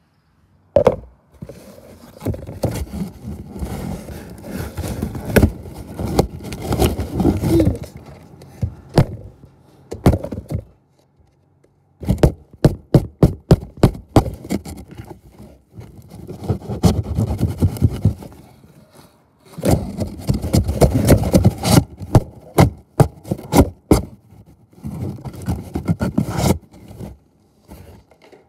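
Close scraping and rubbing right on a phone's microphone as the covered phone is handled or moved, in long stretches with short pauses. Several quick runs of sharp knocks and taps cut in, one about halfway through and more in the last few seconds.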